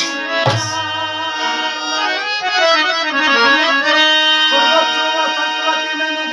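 Harmonium playing sustained chords and a shifting melody, its reeds held on by the hand-pumped bellows. There is a single deep dholak stroke about half a second in.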